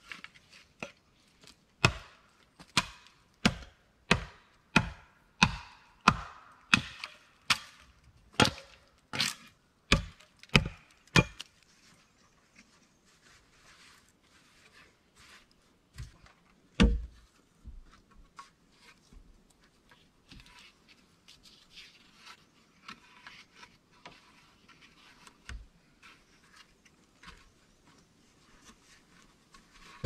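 A blade chopping down onto wood, sharp strokes roughly twice a second for about ten seconds, then lighter scattered taps with one louder knock midway.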